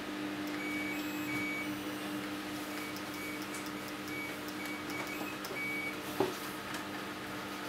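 Faint electronic tune of short high beeps from a snap-circuit kit's music chip, sounding through a small DC motor wired as a "singing motor", over a steady low hum. The chip's output is too weak to spin the motor with its fan.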